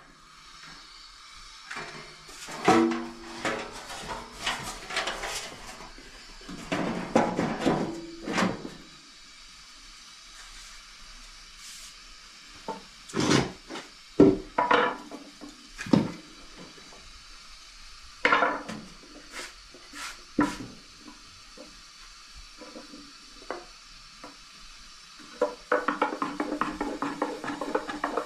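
Bread-making handling sounds: a metal bowl and pans clattering and knocking against the floor and a wooden board, a few separate knocks at a time. Near the end, a quick steady patting as dough is flattened by hand on the wooden board.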